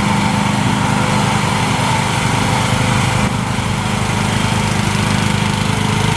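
Small engine of an AGT QH13R mini excavator running steadily at a constant speed.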